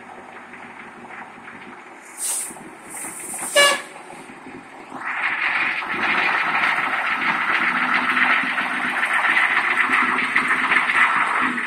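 International-chassis Blue Bird school bus's diesel engine idling, then two sharp hisses of air, typical of the air brakes releasing, and the engine pulling hard and loud as the bus drives off past.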